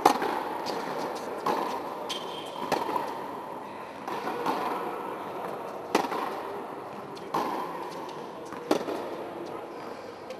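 Tennis rally on an indoor hard court: sharp pops of rackets striking the ball and the ball bouncing, about every second and a half, each echoing in the hall. The loudest pop comes right at the start, over steady background noise.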